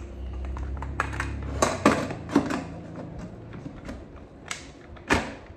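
Stainless-steel pressure cooker being handled, with metal clinks and knocks of the lid and pot as the gasket is refitted and the lid put back on. There are several sharp clanks, one of the loudest about five seconds in, over a low hum during the first two seconds.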